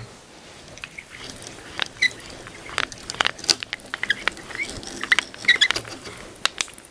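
A twist bit in a hand-powered drill boring through a wooden tenon, cutting with an irregular crackle of small clicks and a few short squeaks.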